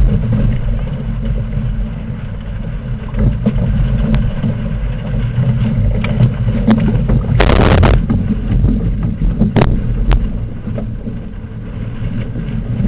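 Strong wind buffeting a boat-mounted camera's microphone as a sailing dinghy sails in a 20-25 knot breeze: a heavy, uneven low rumble. A brief loud hiss comes about seven and a half seconds in, and a sharp knock about two seconds later.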